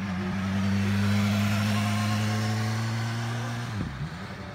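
A motor vehicle engine running with a steady low hum, swelling about a second in; near the end its pitch dips sharply and comes back up.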